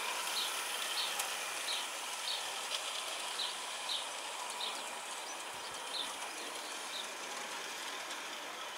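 A small bird chirping over and over, a short high note about every half second, over a steady outdoor hiss.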